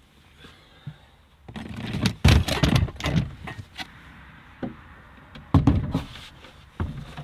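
Knocks and thuds of plastic storage boxes and a wooden bedside table being set down in a small car's boot, in two clusters with a few single knocks between.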